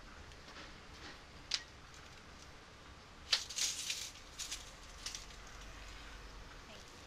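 A hand tool at work on a length of plastic pipe: scattered sharp clicks and light rattles, with a denser cluster of them about three and a half seconds in.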